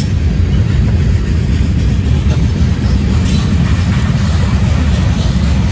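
Union Pacific mixed freight train's cars rolling past: a steady, loud low rumble of wheels on the rails.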